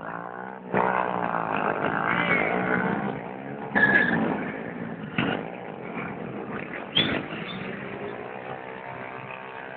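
Motorcycle engines revving and passing by, the engine pitch sweeping up and down as they go past. A few short, sharp noises stand out over the engines, about four, five and seven seconds in.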